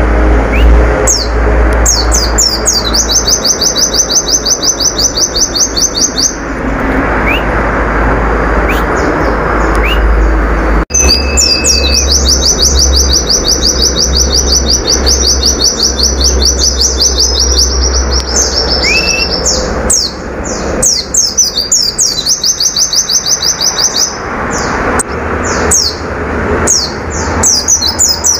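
Pleci (white-eye, Zosterops) singing in long runs of a fast, even, high trill, about ten notes a second, broken by quick downward-sweeping chirps, with a low rumble underneath.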